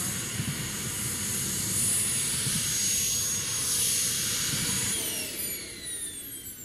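JetCat P180 model gas turbine running at idle with a steady high whine and rushing exhaust. About five seconds in it shuts down, and the whine falls steadily in pitch as it spools down.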